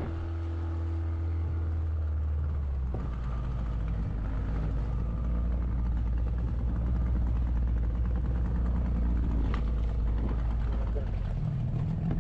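A small fishing boat's engine running steadily, its note dropping to a lower pitch about three seconds in.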